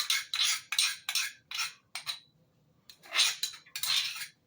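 A spoon scraping against a dish: about six quick short scrapes, a pause, then two longer scrapes.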